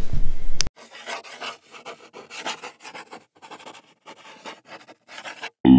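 A hand rubbing over the camera, then a rapid run of short scratching strokes like chalk or a brush dragged across rough paper, the sound effect for a hand-drawn logo being sketched. Guitar music starts near the end.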